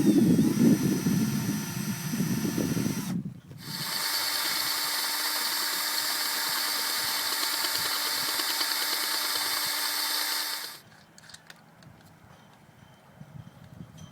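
A loud low rumble for about three seconds, then, after a brief break, a power drill runs steadily with a high whine for about seven seconds and stops suddenly. The drill is boring into the top of the mast for a secondary forestay fitting.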